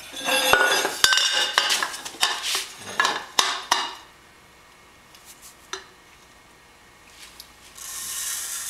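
A thin metal tube clattering and clinking against a steel welding table and a steel bar as it is turned and set in place, with many sharp knocks over the first four seconds. Near the end a felt-tip marker rubs along the tube with a steady hiss.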